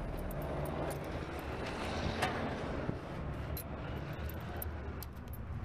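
U-Haul box truck's engine idling with a steady low rumble, with a couple of light clicks about two and three seconds in.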